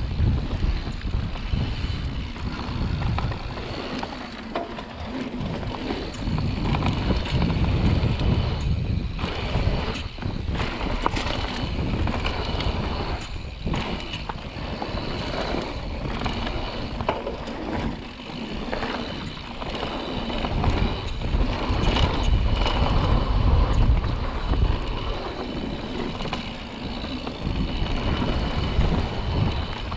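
Mountain bike descending a dirt trail: wind buffeting the microphone with a low rumble, tyres rolling over dirt, and frequent knocks and rattles from the bike over bumps.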